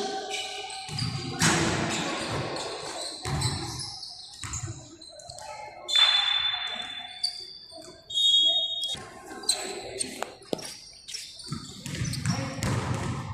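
A ball bouncing on a hard floor in a large echoing hall, with scattered sharp knocks, short high squeaks about six and eight seconds in, and voices in the background.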